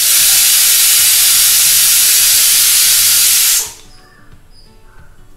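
Pressure cooker whistle: steam venting under the weight valve as a loud, steady hiss for a little under four seconds, then cutting off suddenly. This is one whistle, the sign that the cooker has come up to pressure.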